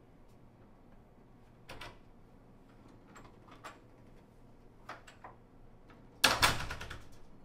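Office door handle and latch clicking as the door is opened, then the door shut: a sharp knock with a short rattle about six seconds in, the loudest sound.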